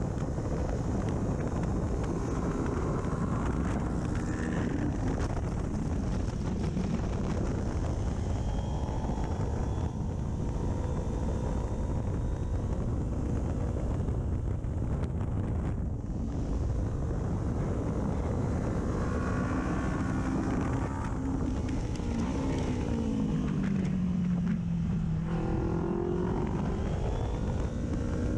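2019 Kawasaki Ninja 400's parallel-twin engine running at track speed through an aftermarket full exhaust, its note rising and falling as it is revved and shifted, under heavy wind rush on the microphone. Near the end the note drops sharply and then climbs again.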